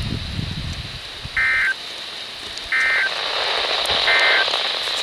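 Three short, evenly spaced bursts of NOAA Weather Radio SAME digital data tones, warbling buzzy chirps about a second and a half apart, heard over steady radio static: the end-of-message code that closes an emergency alert broadcast.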